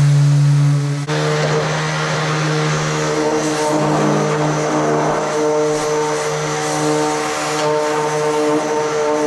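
A machine running steadily, giving a loud, even drone with a low hum and several overtones; about a second in, a cut brings in added hiss over the same drone.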